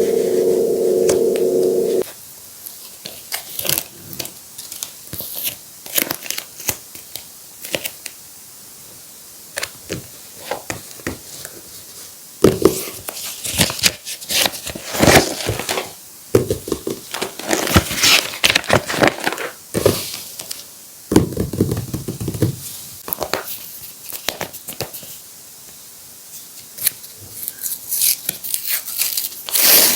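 Paper and tape being handled: crinkling, rustling and tearing in irregular spurts with short pauses. A loud steady hum fills the first two seconds, then cuts off.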